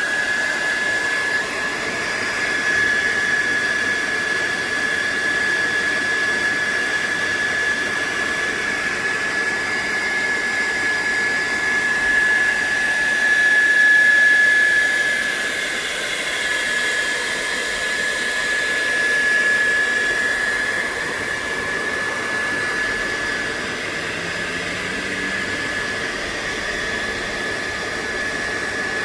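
Hair dryer switched on and running steadily, a rushing blow of air with a steady high whine, heating the phone's glued digitizer to soften the adhesive.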